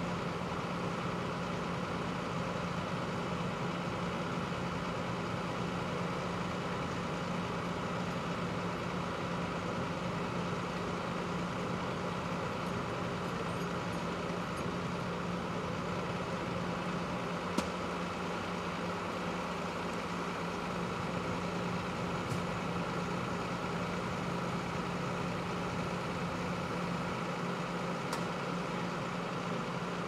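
Fire engine and ambulance engines idling steadily, a constant low hum, with a single sharp click a little past the middle.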